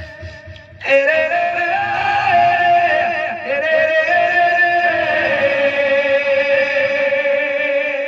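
Devotional folk singing over musical accompaniment: a voice starts about a second in and sustains long, wavering, held notes.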